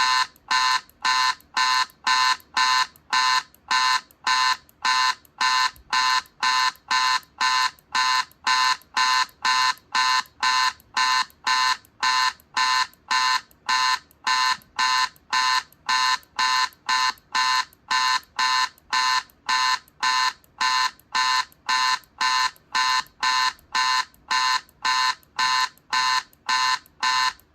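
Electronic alarm-like beeping, short pitched beeps repeating evenly at about two a second without a break.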